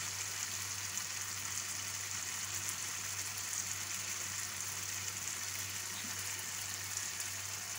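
Tomato and onion pasta sauce sizzling and bubbling steadily in a frying pan on a gas burner, with a low steady hum underneath.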